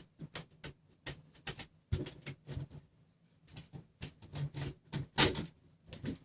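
Irregular clicks and knocks of threaded rods and frame hardware being handled and fitted together, with the loudest knock about five seconds in.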